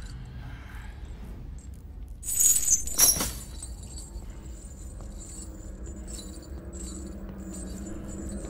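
Metal rattling and clinking for about a second, starting about two seconds in and ending in a sharp metallic hit, over a low steady rumble of the soundtrack's background.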